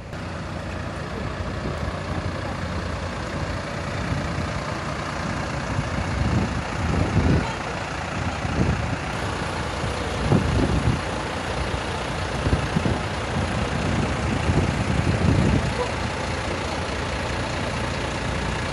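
A Mercedes-Benz coach driving, heard from on board: continuous engine and road noise, with low rumbles that swell several times.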